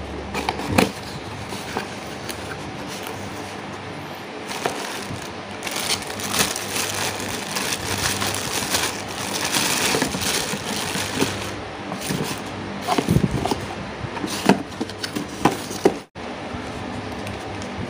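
Clear plastic bag crinkling and rustling as a spinning reel is unwrapped from it, with small knocks and clicks of the cardboard box being handled. The crinkling is densest near the middle.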